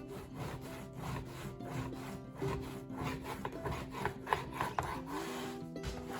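Repeated wooden scraping strokes, about two or three a second, as a spoon stirs porridge in a pot, over soft background music with long held notes.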